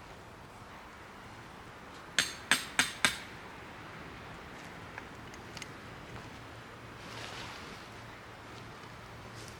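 Four sharp hammer-like strikes in quick succession, about three a second, each with a short ring, followed by a few faint clicks and a soft rustle.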